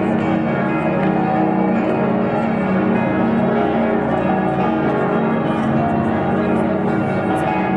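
Many church bells ringing at once across the city, the peals of several towers overlapping into a dense, continuous mass of tones.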